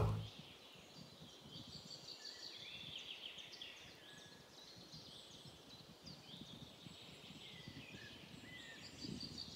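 Faint birdsong outdoors: many short high chirps from small birds over a light background hiss.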